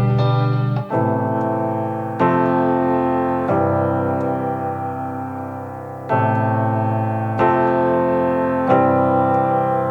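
Background music: slow piano chords, a new chord struck every second or so and left to ring and fade.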